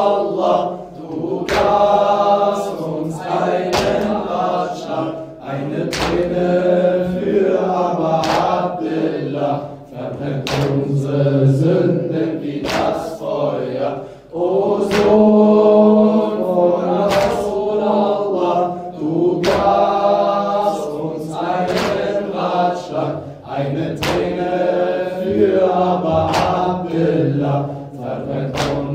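Latmiya, a Shia lamentation chant: a male reciter sings into a microphone while a group of mourners chants along, over regular chest-beating slaps about once a second.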